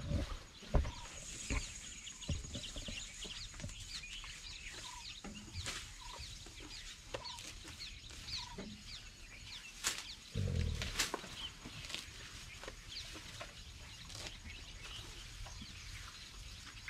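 Wild birds calling: a chorus of short high chirps, with a lower clucking note repeated roughly once a second. A low rumble comes through about ten seconds in.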